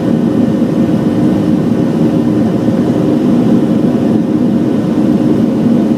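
Boeing 737-700 cabin noise during the climb after takeoff: the CFM56-7B turbofans and rushing air make a steady, low, even noise with no change.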